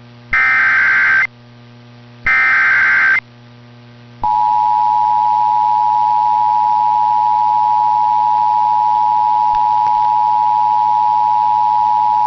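Emergency Alert System signal on the radio: two short, harsh data bursts, the end of the three-times-repeated SAME header. About four seconds in, the two-tone EAS attention signal starts and holds steady, sounding two close pitches at once. A low hum runs underneath. Together they mark the activation of a severe thunderstorm warning.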